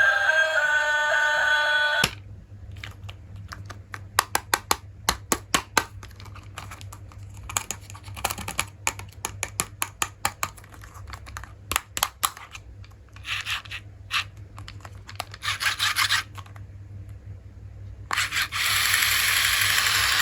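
Background music cuts off about two seconds in. Then plastic toy pieces and packaging are handled by hand: irregular sharp clicks and taps with scraping and tearing. Near the end a loud, steady hiss with rattling starts.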